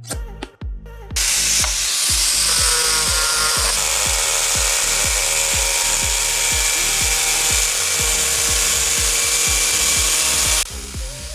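A power tool running steadily under load, starting abruptly about a second in and cutting off sharply near the end, over background music with a steady beat.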